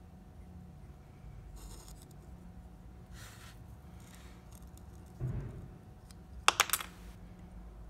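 Small metal parts being handled while fitting an optical encoder onto a servo motor: light scraping and fiddling, a dull knock about five seconds in, then a quick cluster of sharp metallic clicks, the loudest sound.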